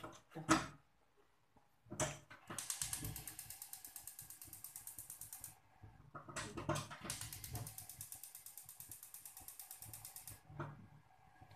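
Gas stove's electric spark igniter clicking rapidly in two long runs of about three seconds each, the burner being lit under the wok, with a few knocks of handling before each run.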